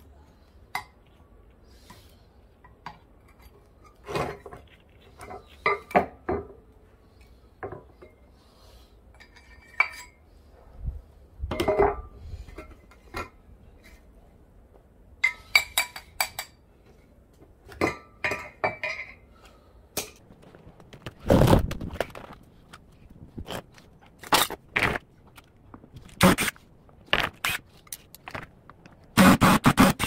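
Scattered metallic clinks, knocks and scrapes as a Samsung washing machine's stainless drum is dismantled with hand tools, its metal drive flange prised off. The loudest clatter comes about two-thirds of the way through, with a quick run of knocks near the end.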